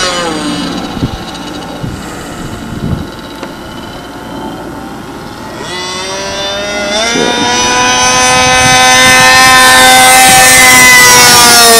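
Remote-control P-51 Mustang model plane's engine at high speed, making fly-by passes. At the start the pitch drops and the sound fades as the plane moves away. It comes back with the pitch jumping up about seven seconds in as the throttle opens, then grows loud and falls in pitch as the plane passes close near the end.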